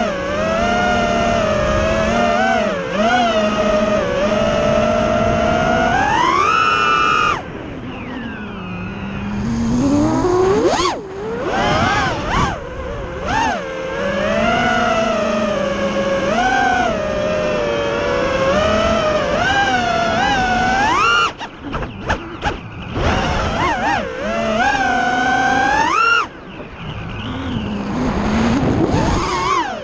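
Freestyle FPV quadcopter's XNOVA RS2206 2500 kV brushless motors and propellers, recorded onboard: a whine that rises and falls in pitch with the throttle. It climbs sharply in bursts and drops away several times as the throttle is cut.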